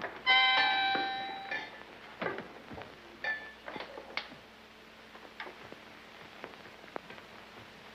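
Harmonica blown: one loud chord that fades over about a second and a half, then a shorter chord about three seconds in. After that only faint clicks and hiss.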